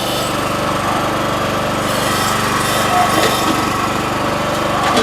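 Towable backhoe's small engine running steadily, driving the hydraulics.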